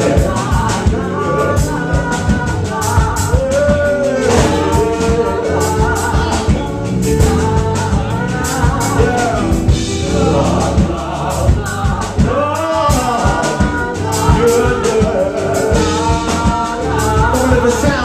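Live gospel music: a male lead singer sings into a microphone over keyboard and a drum kit beating steadily.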